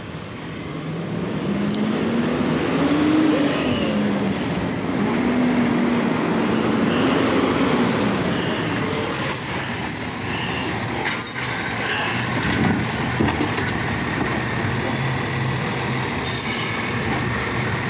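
Automated side-loading recycling truck pulling up, its engine rising and falling in pitch, followed by a hiss about nine seconds in. A few sharp knocks follow, then a steady run as its mechanical arm lifts a wheeled cart.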